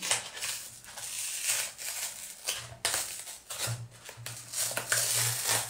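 Hands handling a drone's packaging insert: rustling and scraping of the stiff packaging as it is pulled at, with a few sharper clicks and snaps.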